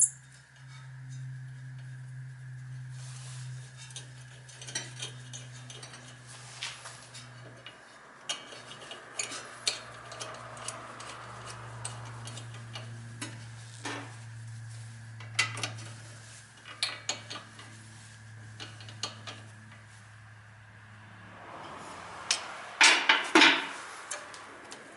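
Metal tools and parts clinking and clattering during work on the car, scattered light clicks with a louder burst of clatter near the end, over a steady low hum.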